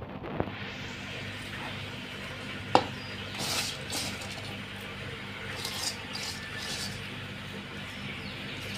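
Fried vegetable peels being scraped by hand out of a dark pan onto a stone grinding slab (shil-pata): one sharp knock about three seconds in, then short rustling scrapes, over a faint steady hum.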